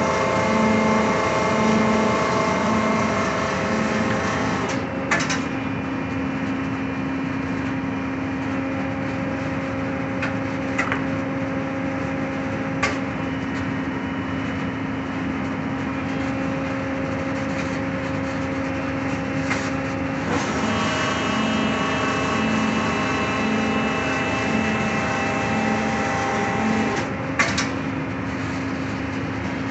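Marvel 18 x 20 vertical automatic band saw running and feeding its blade down through a wooden block, a steady machine hum with a low pulsing note at the start and again past the middle. A few sharp clicks sound along the way.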